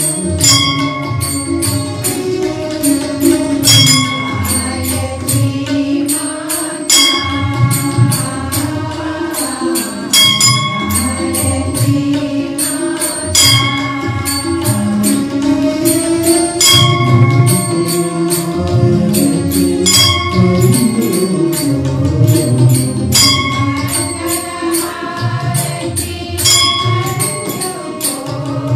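Hindu devotional chant sung by a group over instrumental music, with a ringing metallic strike about every three seconds.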